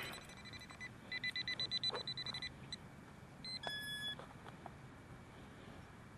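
Electronic beeps from metal detecting gear: a rapid run of short high beeps at one pitch, about eight a second, for over a second, then a single brief beep a couple of seconds later.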